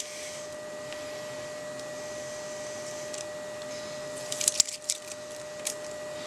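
Double-sided tape being handled and its backing peeled off a small acrylic piece: a short cluster of crinkly crackles about four and a half seconds in and a few light ticks, over a steady faint hum.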